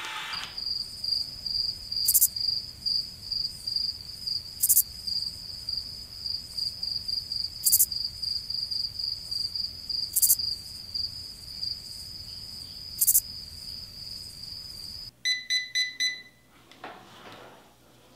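A steady high-pitched whine with a faint pulse and a sharp tick every two to three seconds, then, about fifteen seconds in, four quick beeps from a CHI Spin N Curl automatic hair curler signalling that the curl is done.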